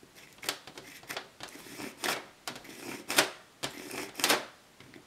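A nitro RC engine's recoil pull starter, held in the hand off the engine, having its cord pulled out and let back in: about half a dozen short rasping zips of cord running through the housing, spaced irregularly.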